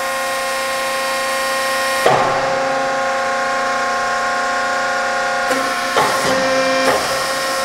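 Hydraulic pump of a 175-ton Accurpress CNC press brake humming steadily as the machine runs the first step of a bending program. The hum shifts about two seconds in as the ram makes its stroke, and settles back about five and a half seconds in.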